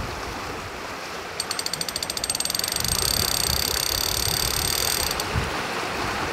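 Trolling reel's drag clicking as line is pulled off the spool, beginning as separate clicks about a second and a half in, quickly running together into a steady buzz, and cutting off about five seconds in. A seagull has taken the trolling lure. Wind and sea noise run underneath.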